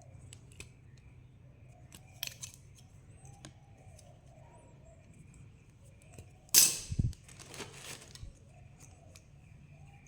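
Sharp snips and clicks of hand tools cutting and working electrical wire: a pair of snips about two seconds in, and the loudest crunching cut a little past halfway, followed by a few smaller ones.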